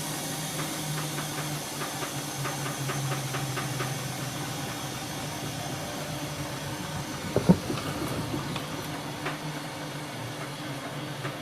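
Siemens Siwamat iQ front-loading washing machine running: a steady motor hum with a run of quick light clicks in the first few seconds and a single loud knock about seven and a half seconds in.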